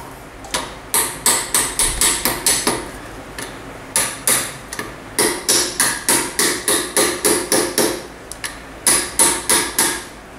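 Hammer blows driving a part into the hub of a motorcycle front wheel: sharp strikes on metal, about three a second, in several runs with short pauses between, until the part is seated.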